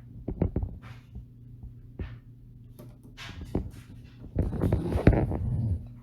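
Small clicks and scraping from handling hardware on the workbench: an M.2 SSD being pushed into its motherboard socket and its retaining screw fitted. The handling gets busier and louder near the end, over a steady low hum.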